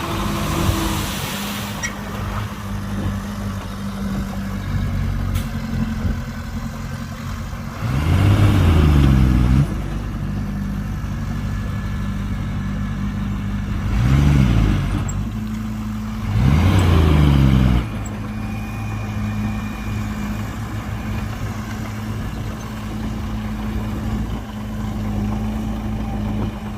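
Heavy diesel engine of a dump truck or bulldozer working in mud, running steadily and revved hard three times, about eight, fourteen and seventeen seconds in, the pitch sweeping with each rev.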